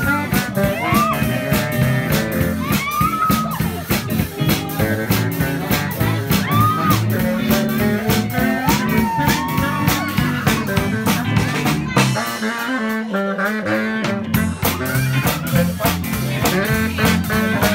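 Live band playing jazz on baritone and alto saxophones over a drum kit, with a steady beat and a saxophone melody. The bass drops out for a couple of seconds about twelve seconds in, then returns.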